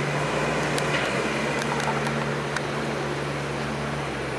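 Steady hum of running machinery, a constant low drone with a few faint ticks over it.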